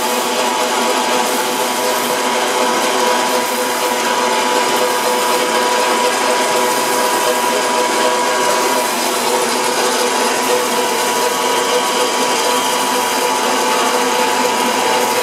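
Portable line-boring machine running steadily: an even mechanical whine with a couple of steady tones over a grinding hiss, from its drive and gearing turning the boring bar.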